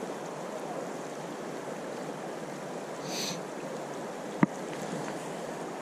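Steady rush of river water flowing over rocks, with a brief hiss about three seconds in and a single sharp click about four and a half seconds in.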